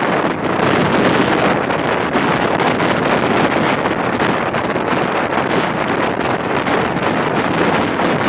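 Heavy wind buffeting the microphone held out of the window of a moving passenger train, mixed with the train's running noise.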